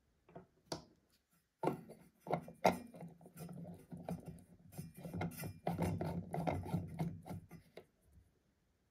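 An IKEA TRÅDFRI E14 LED bulb being screwed into a lamp socket by a hand inside the shade: a couple of small clicks, then from about two seconds in a run of scraping and rubbing with many small clicks, stopping near the end.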